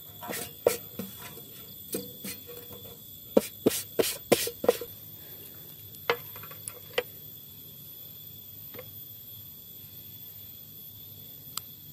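A series of sharp clicks and knocks, several in quick succession about three and a half to five seconds in, then a few scattered ones, over a steady faint high-pitched tone.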